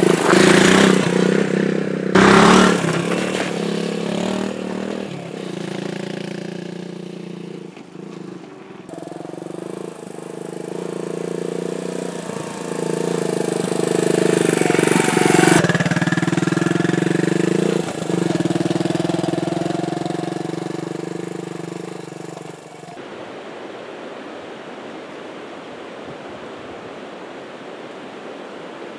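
Suzuki dual-sport motorcycle engine revving as the bike passes close by on gravel and then climbs a dirt trail, its pitch rising and falling with the throttle, loudest about two seconds in and again around fifteen seconds. The engine sound stops abruptly about six seconds from the end, leaving a steady rushing noise of river water.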